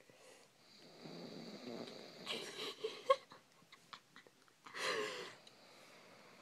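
A sleeper snoring: a soft breathy rumble, then two louder, harsh snores about two and a half and five seconds in, the second with a pitched, whistling edge.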